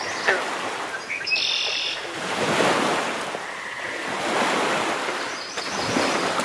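Ocean surf washing in, rising and falling in long swells, with a few short bird calls near the start.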